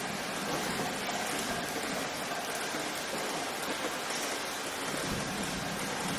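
Steady rainfall, an even hiss with fine crackle of drops and no distinct events.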